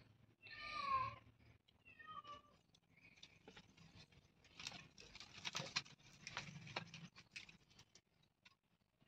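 A cat meows once about a second in and again more faintly near two seconds. After that, quiet crackling and snapping of dry jute sticks catching fire and being broken by hand as kindling.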